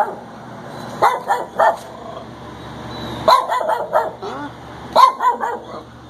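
Dogs barking in the kennels of an animal shelter: a few short barks about a second in, a longer run of barks at about three seconds, and another burst about five seconds in.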